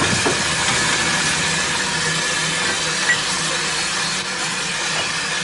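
Steady hiss of steam escaping from a Welshpool and Llanfair narrow-gauge steam locomotive, No. 1, standing at close range.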